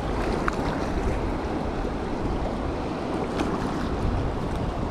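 Waves washing on the shore and wind buffeting the microphone: a steady rushing noise.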